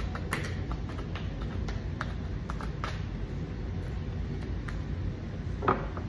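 Tarot deck being shuffled and handled by hand: scattered soft clicks and slides of cards over a steady low hum, with a brief vocal sound near the end.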